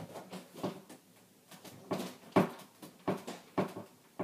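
Irregular knocks and thumps, about half a dozen with the loudest about two and a half seconds in, from a one-year-old banging to get into the room.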